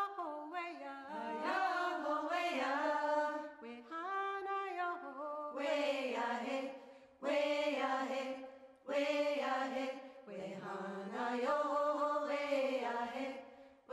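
Soundtrack music: a voice chanting in long held, gliding phrases, with short pauses between phrases.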